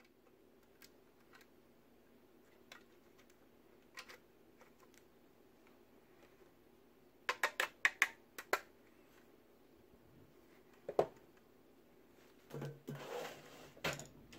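Light plastic clicks and taps as a circuit board is seated in a plastic battery-charger housing. A quick run of about six sharp clicks comes about halfway through as a hand screwdriver drives the board's screws, followed by a few more taps and a brief scuffing rustle near the end.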